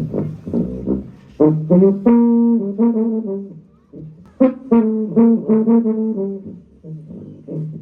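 Music led by a brass instrument, trombone-like, playing a riff of short notes with a few held notes, over a low pulsing bass.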